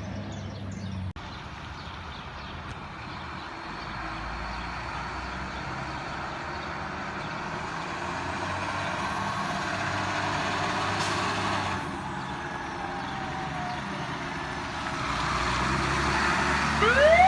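Fire truck's diesel engine running, its sound building slowly over several seconds and then easing off. Near the end a siren starts winding up in pitch.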